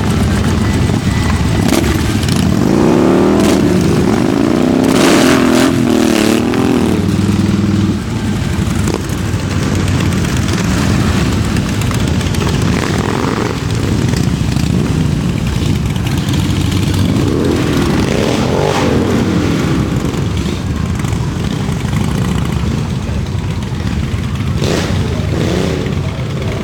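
Motorcycle engine running while being ridden. The revs climb and fall several times, most strongly in the first third and again about two-thirds in.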